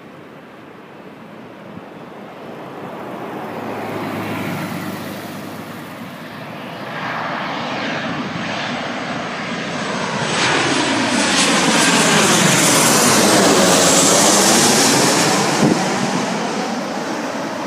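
Twin-engine jet airliner on final approach flying low overhead. Its engine noise grows from a distant rumble to a loud rush as it passes above, with a sweeping, phasing whoosh at its loudest, then starts to fade near the end.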